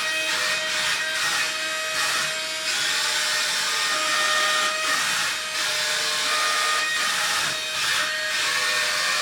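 Wall-climbing RC car's suction fan running: a steady whirring whine over rushing air, dipping briefly a couple of times.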